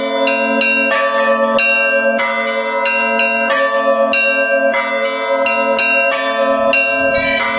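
Russian Orthodox church bells in festive ringing. Smaller bells are struck in a quick, uneven rhythm, about two to three strokes a second, over the steady ringing of the larger bells.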